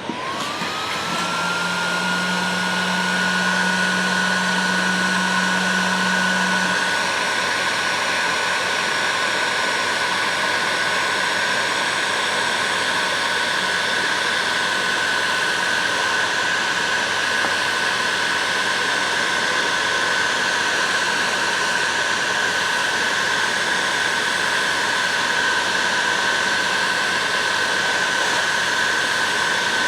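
Electric heat gun switched on, its fan whine rising to a steady pitch over the first couple of seconds, then running steadily with a rush of hot air, shrinking heat-shrink tubing onto plier handles.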